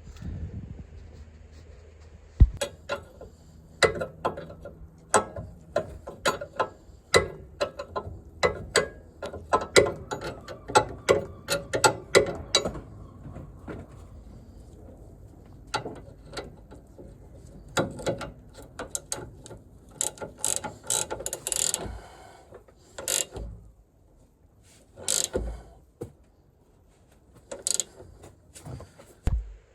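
Hand ratchet clicking in quick runs as a ball joint nut is tightened, with the jack pressing the joint up so that its stud no longer spins with the nut. Sparser clicks and short scraping sounds follow in the second half.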